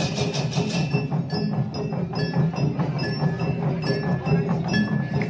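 Balinese okokan ensemble playing: many large wooden okokan clapper bells clattering in a dense rhythm, with drums and short high metallic pings repeating through it. A bright cymbal wash dies away about a second in.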